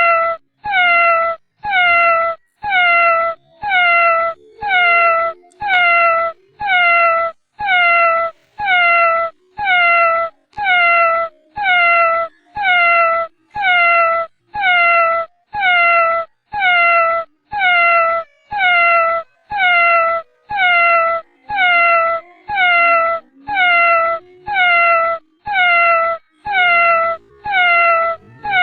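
A cat meowing over and over at a steady rate of about one meow a second, each meow short, high and falling slightly in pitch, every one the same as the last.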